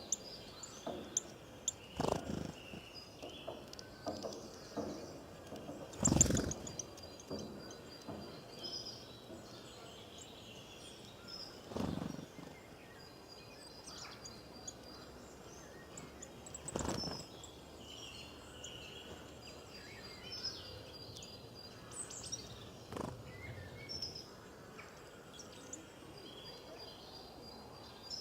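Small birds chirping and twittering over a steady background hiss, with several short thumps, the loudest about six seconds in.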